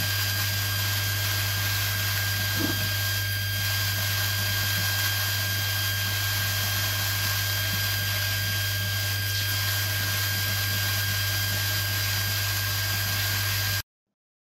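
Homemade stainless steel drum filter in its cleaning cycle: the spray-bar pump runs with a steady hum and a thin whine while its water jets spray onto the mesh drum. The sound stops abruptly near the end.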